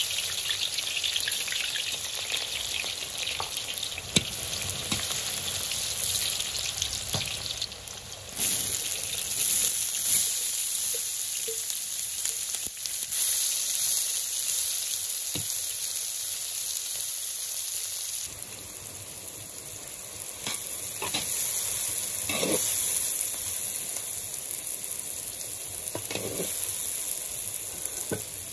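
Diced vegetables sizzling in hot oil in a cast-iron kazan as they are stirred with a metal spoon. The sizzle surges about eight seconds in, and there are occasional scrapes of the spoon against the pot later on.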